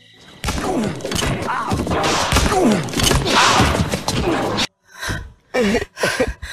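A loud cartoon scuffle: about four seconds of dense thuds and crashing, with voices crying out through it, which cuts off abruptly. Short groaning voice sounds follow.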